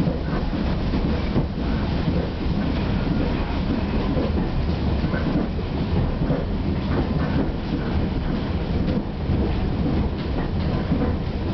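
Heritage railway passenger carriage running along the track, heard from inside: a steady rumble from wheels and body with irregular light knocks and rattles.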